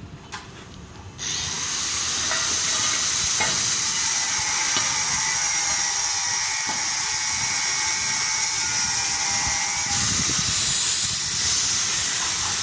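Stick-welding arc gouging a hole through steel: a loud, steady hissing crackle that strikes up abruptly about a second in.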